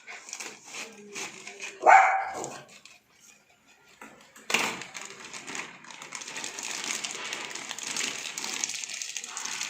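A dog barks sharply about two seconds in, followed by a second sudden sound a couple of seconds later and then a steady hiss.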